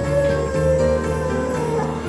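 Instrumental background music with held notes that change in steps; no other sound stands out.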